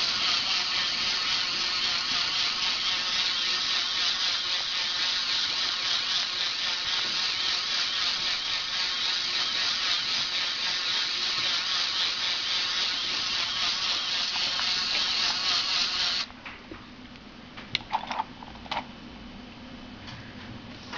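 LEGO Mindstorms electric motor and plastic gear train whirring steadily, then stopping abruptly about 16 seconds in. A few light clicks of LEGO parts follow.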